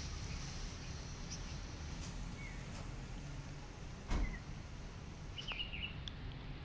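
Outdoor background of a steady low rumble with a few short, high bird chirps, a cluster of them near the end, and a single thump about four seconds in.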